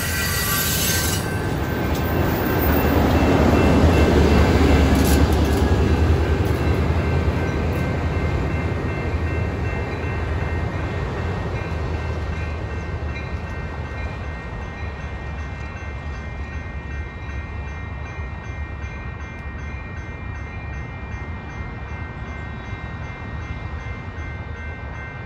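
Amtrak California bilevel passenger train passing: a low diesel locomotive rumble and the noise of wheels on rail swell to a peak a few seconds in, then slowly fade as the train moves away. Steady high-pitched wheel squeal runs over it.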